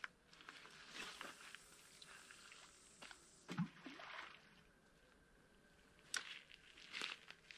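Faint sounds of a man casting a fishing rod from the bank: scuffing steps on dirt at first, a dull thump about three and a half seconds in, and a sharp click a little after six seconds.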